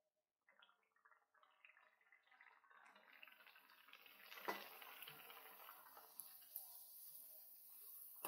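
Farsi puris frying in hot oil in a kadhai: the oil sizzles and crackles, faint at first and building steadily as it bubbles up around the dough. A sharp knock comes about halfway, and a metal clink near the end as a wire skimmer goes into the pan.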